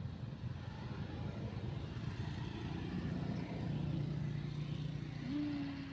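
A motor engine running steadily nearby, its pitch stepping up about five seconds in.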